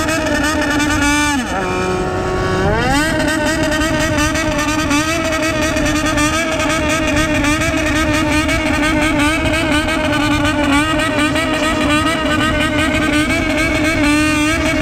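Honda CBX400F inline-four revved at high rpm through a Waltz Kikai aftermarket exhaust, a Japanese high-rev 'call'. The revs sag about a second and a half in, climb back by about three seconds, then hold high with small wavers.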